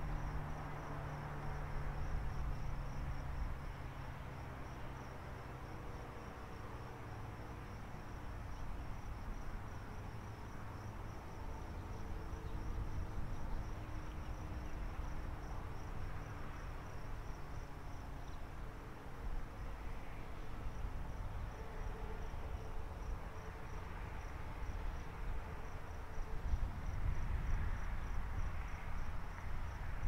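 American Signal T-135AC warning siren winding down at the end of its alert, its tones sliding slowly lower and fading away over the first dozen seconds. A cricket chirps steadily throughout, over a low rumble.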